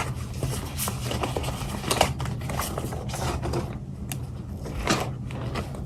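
Paper flyers and coupons being handled and shuffled: a run of short rustles and taps over a low steady hum.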